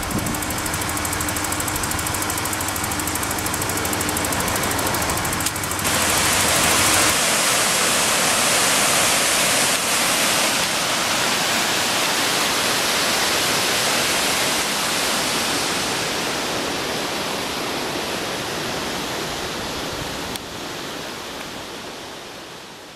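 A 2.9-litre Cologne V6 in a Ford Ranger idling steadily for about six seconds. Then the steady rush of a rocky mountain river takes over and slowly fades near the end.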